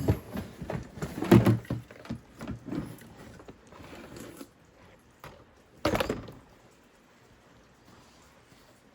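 Knocks, thumps and clatter of objects being handled and moved while an old string trimmer is fetched. The loudest bump comes about a second and a half in, with another sharp knock near six seconds, then it goes quiet.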